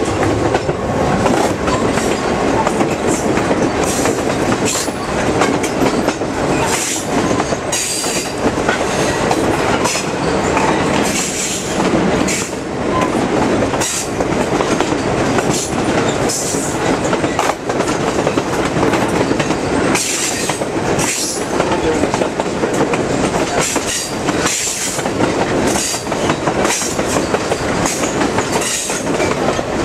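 Passenger train's steel wheels rolling along the rails, a steady rumble broken by many clacks over rail joints, with brief, scattered high wheel squeals.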